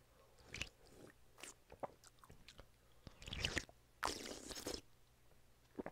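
Quiet slurps and swallows of a man drinking egg-soup broth straight from the bowl, with small mouth clicks; the longest slurp comes about four seconds in.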